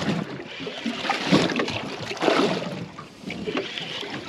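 Water slapping and sloshing against the hull of a small aluminium boat, coming in irregular surges.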